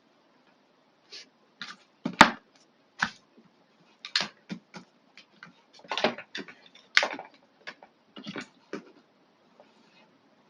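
Irregular clicks, taps and short scrapes of small parts and tools being handled on a workbench during a trimmer battery replacement, with the sharpest knock about two seconds in.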